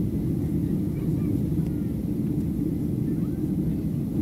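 Cabin noise of a Boeing 737-700 in flight shortly after takeoff, heard from a seat over the wing: a steady low rush of its CFM56-7B engines and airflow.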